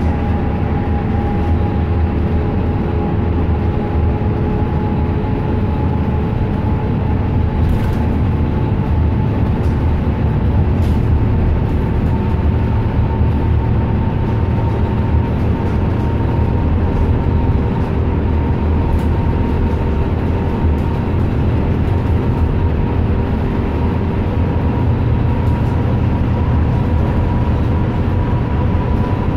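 Inside a transit bus under way: steady drone of the engine and tyres on the road, with a whine that rises slowly in pitch as the bus picks up speed.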